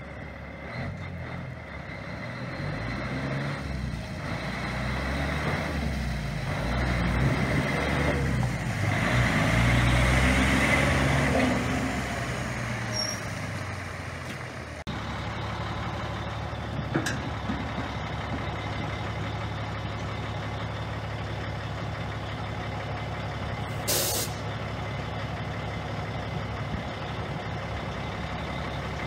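Sterling LT9500 plow truck's diesel engine pulling through its gears as the truck drives past, growing louder to a peak about ten seconds in and then fading. After a cut the engine idles steadily, with a brief sharp hiss about twenty-four seconds in.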